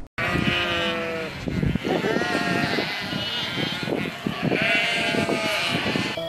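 Sheep bleating: a first call about a second long, then several more bleats over a busy background of short, irregular flock noises.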